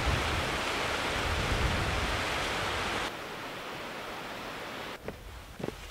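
Rushing water of a rocky stream, a steady loud hiss that drops to a quieter hiss about three seconds in. A few soft footsteps begin near the end.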